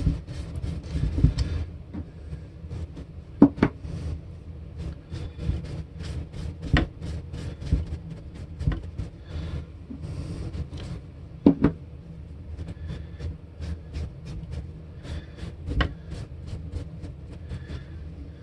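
A rag wiping and rubbing metal polish onto the frets of a masked guitar neck: repeated soft rubbing strokes, a few sharper knocks against the neck, and a steady low hum underneath.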